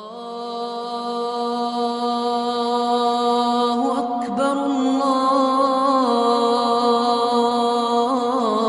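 Chanted vocal music fading in: a single voice holding long notes with slow, ornamented bends in pitch.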